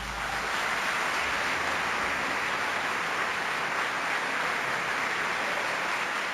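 Audience applause, a steady even patter that follows the end of an orchestral piece.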